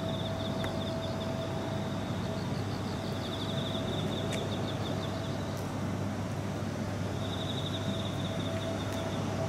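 Steady outdoor night ambience of a town-centre station forecourt: a low background rumble and a constant steady hum, with a high trilling sound that comes and goes three times.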